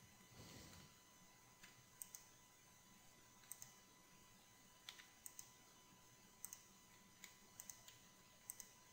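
Faint clicks of a computer mouse and keyboard keys, many in quick pairs, coming every second or so over near-silent room tone.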